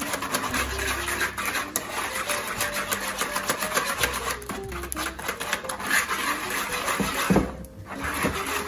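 A small wire whisk beating eggs and sugar in a mixing bowl, its wires clicking rapidly and steadily against the bowl, with a brief pause near the end.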